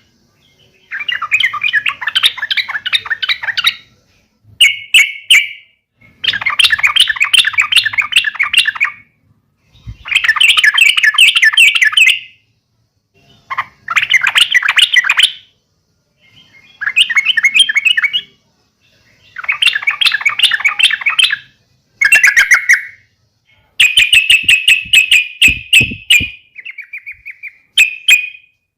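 Yellow-vented bulbul (trucukan) giving fast, chattering fighting calls in repeated bursts of one to three seconds, separated by short pauses.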